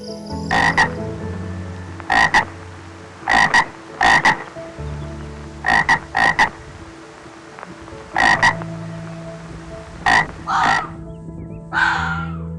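An animal croaking in short, mostly doubled calls, about seven times at intervals of one to two seconds, followed by a longer, harsher call near the end.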